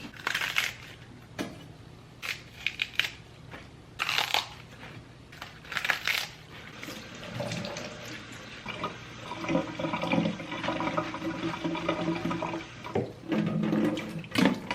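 Kitchen tap water running in short bursts, with a few clinks of dishes. Background music comes in about halfway through.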